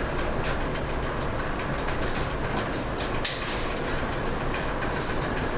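Steady low mechanical rumble with a few light clicks and knocks, as the front wheel is worked by hand to check a newly fitted outer tie rod end for free play.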